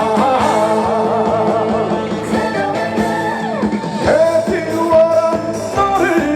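Live band playing a Korean trot song with singing over it: wavering held notes at first, a falling slide in the middle, then a long held note over the band.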